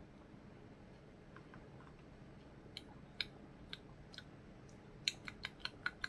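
Sounds of drinking from a glass of juice with ice: quiet at first, then a few short sharp clicks, quickening near the end into a run of about five a second.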